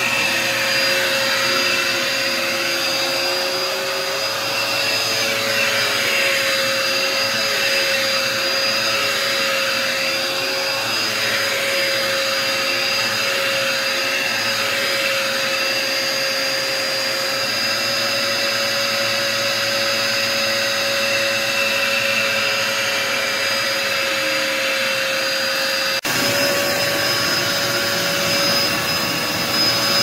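Red bagless upright vacuum cleaner running steadily with a high whine as it is pushed over carpet. Near the end it cuts abruptly to the vacuum running on a hardwood floor.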